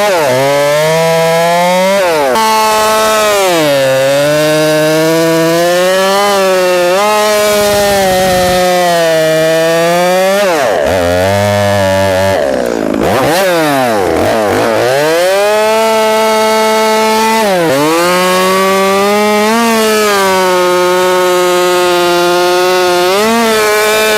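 Chainsaw engine running hard as it cuts through a log, its pitch sagging each time the chain bites into the wood and climbing back up, several times over. About halfway through, the engine falls away sharply for a moment and then revs back up.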